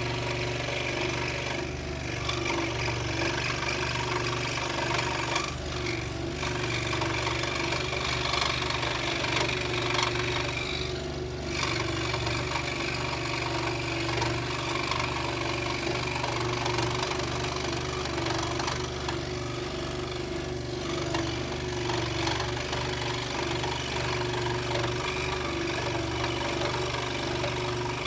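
Scroll saw running steadily, its blade reciprocating as it cuts wood around the outline of a letter, with a constant motor hum and a few brief dips in the cutting noise.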